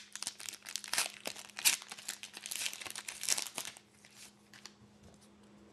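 Foil wrapper of a trading card pack crinkling and tearing as it is opened, a rapid run of crackles that thins out about four seconds in.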